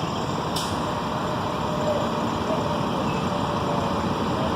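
Idling truck engines, a steady unbroken noise, with one short faint click about half a second in.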